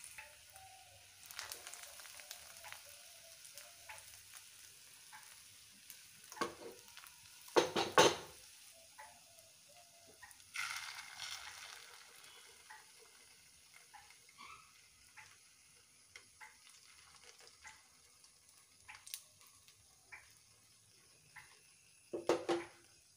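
Oil sizzling and crackling in a frying pan as bread slices fry, swelling to a louder sizzle about halfway through when beaten egg is poured into the holes in the bread. Two loud clattering knocks, one about a third of the way in and one near the end.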